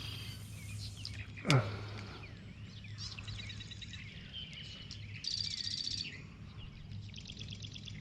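Songbirds singing: several high, buzzy, rapidly pulsed trills, the loudest about five seconds in. There is a brief falling swish about a second and a half in, over a steady low hum.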